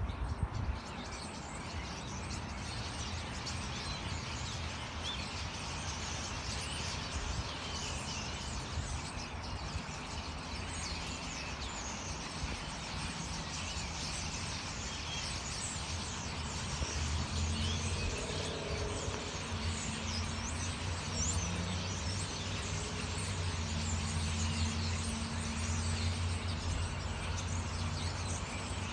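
A flock of small birds chirping in a tree, many short overlapping calls over steady outdoor background noise. From a little past halfway, a low steady vehicle engine hum runs underneath for several seconds.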